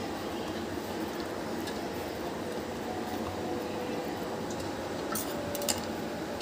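Hands rolling a filled dough sheet on a wooden chopping board, soft handling sounds over a steady background noise, with two light clicks about five seconds in.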